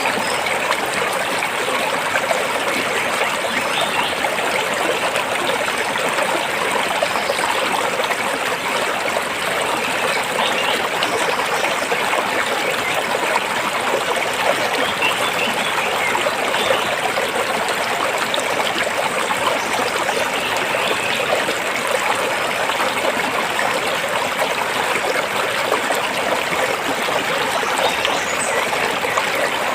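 Stream water flowing steadily over and between rocks, a constant trickling wash.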